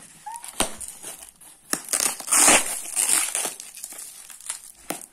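A foam-and-tape-wrapped package being handled and unwrapped: irregular crinkling and rustling of the wrapping, with scattered clicks. The crinkling is loudest about two to three seconds in.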